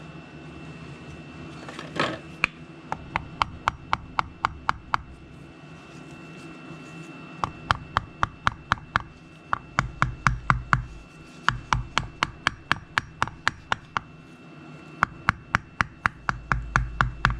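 Light, rapid hammer taps on a piece of wood used as a makeshift driver, seating a thin crankshaft repair sleeve onto a Subaru crankshaft's rear main seal surface. The taps come about five a second in several runs with short pauses between.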